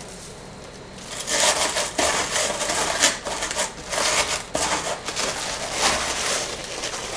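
Paper shred and tissue paper rustling and crackling as hands push them down into a cardboard shipping box. It starts about a second in and goes on in uneven bursts.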